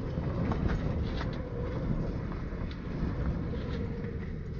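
Strong wind rumbling steadily on the microphone, with a few faint ticks scattered through it.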